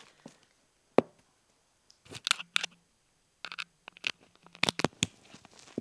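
Handling noise on a wireless microphone: a sharp click about a second in, then a run of short rustling, crinkling bursts, with dead silence between them.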